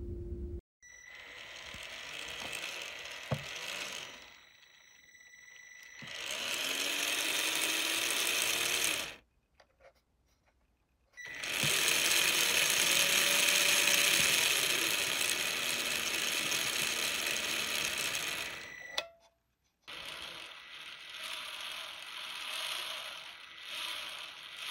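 Small electric motor and gear drive of a battery-powered HO-scale streetcar running under radio-controlled speed control, in three separate runs with pauses between them. In the longer runs the motor's pitch rises and then falls as the speed is varied, over a steady high whine.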